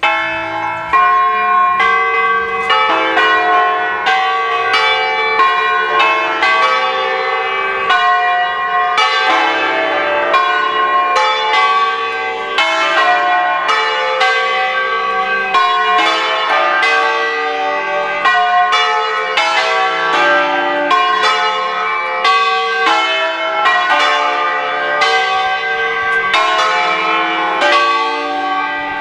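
Five Ambrosian-system church bells, a ring in D sharp cast by A. Bianchi, rung in full swing (distesa) to call to the vigil Mass, striking in quick overlapping succession with each stroke ringing on. The peal begins abruptly and then keeps a steady level.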